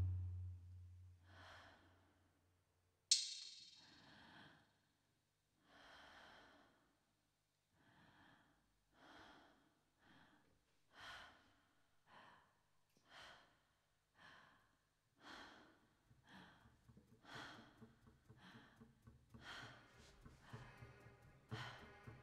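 Faint, rhythmic breaths, about one a second, coming closer together near the end, with a low hum entering past the middle. A deep boom dies away at the start and a sharp hit rings out about three seconds in.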